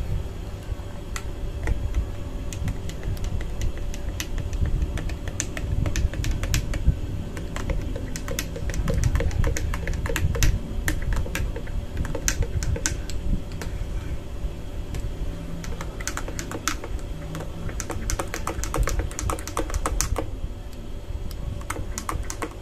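A long spoon stirring a drink in a tall glass, clinking against the glass in quick, irregular ticks over a steady low rumble.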